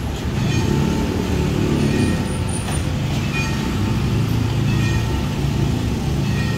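Road traffic passing close over a level crossing: motorcycle and small-truck engines running as they drive by.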